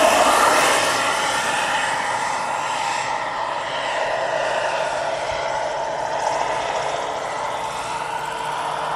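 Giant-scale turbine-powered RC model AH-64 Apache helicopter in flight: the turbine's whine and rotor noise run steadily, loudest as it passes close at the start and somewhat quieter from about a second in as it flies off.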